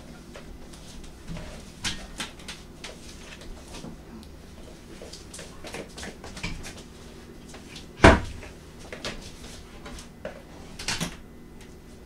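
Kitchen clatter: scattered clicks and knocks of utensils and containers being handled, with one loud thump about eight seconds in and a short run of knocks near the end.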